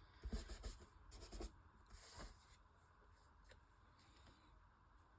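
Faint scratching and rustling of paper being handled, a few soft strokes in the first two seconds or so, then near silence.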